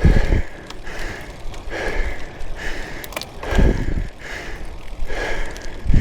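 Heavy breathing of a cyclist working hard on a climb: deep breaths in and out repeating about every second or two, the strongest breaths blowing onto the microphone.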